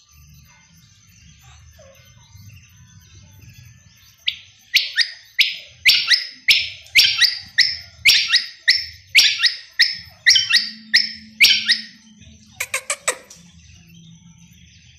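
Female quail calling in a fast series of about eighteen sharp, high notes, two or three a second, from about four seconds in to about twelve seconds, then a quick burst of four notes just after.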